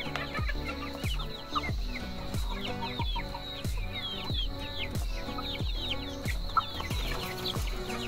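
Background music with a steady deep beat, with chickens clucking over it.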